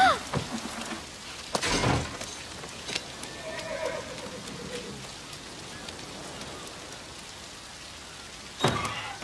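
Steady rain falling, with a dull thump about a second and a half in and another near the end.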